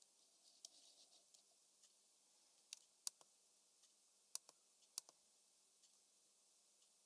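Smith-Corona Calypso portable typewriter giving a few sharp, widely spaced mechanical clicks from its keys and carriage, the loudest ones about three seconds in and about five seconds in.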